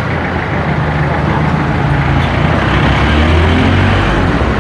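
Steady loud rumbling background noise, with a heavy low drone that swells somewhat around the middle.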